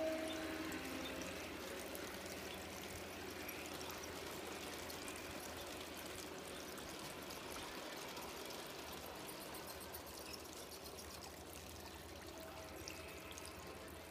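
Steady running, trickling water from a small garden-railway waterfall. A short ringing tone at the start fades within about a second.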